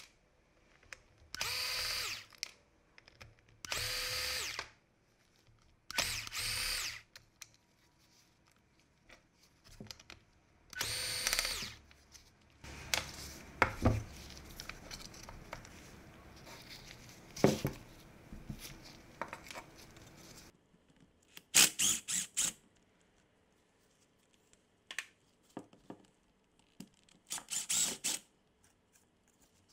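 A small electric screwdriver runs in repeated short bursts of about a second each, backing screws out of a power tool's switch housing, with scraping and sharp clicks of metal parts being handled in between. Near the end a rotary tool with a brush wheel runs briefly against the metal housing.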